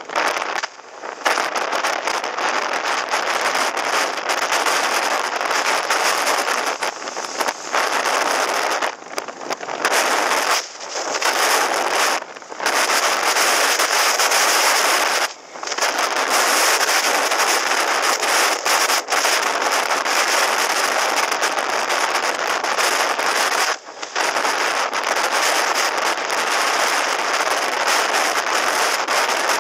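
Wind rushing over a helmet-mounted camera's microphone on a moving motorcycle: a loud, steady hiss with crackling buffets that cuts out briefly several times.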